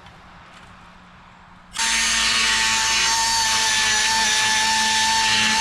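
Die grinder starting up about two seconds in and running with a steady high whine, cleaning slag from plasma-cut holes in a metal deck.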